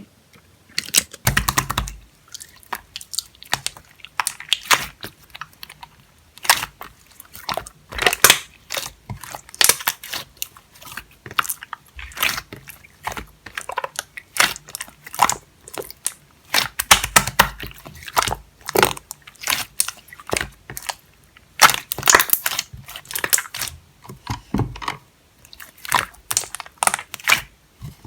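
Jelly-textured slime being squished and pressed by hand, making irregular wet clicks and small pops of trapped air, a few a second.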